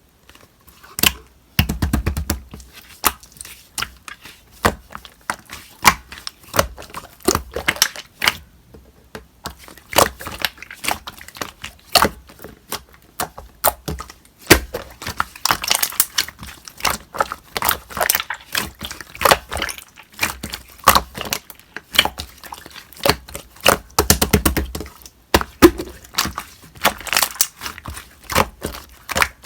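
Slime being handled, pressed and poked by hand, making many quick, irregular clicks and pops.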